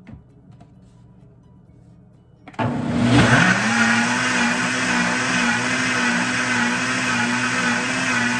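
Countertop blender switched on about two and a half seconds in: the motor spins up quickly with a rising whine, then runs steadily at high speed, blending a milky liquid mixture.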